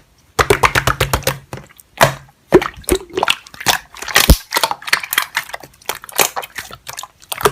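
Slime being squished and pressed by hand, giving rapid, crisp clicking and popping.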